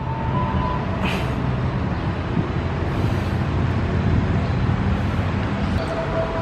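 A motor vehicle engine running steadily nearby as a low rumble, with a brief hiss about a second in.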